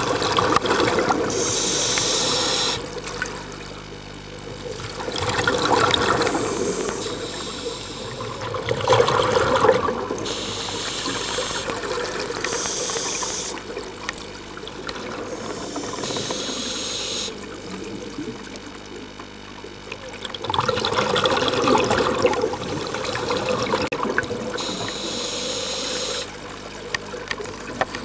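Scuba diver breathing through a regulator underwater: hissing inhalations alternating with bubbling, gurgling exhalations, one breath every few seconds.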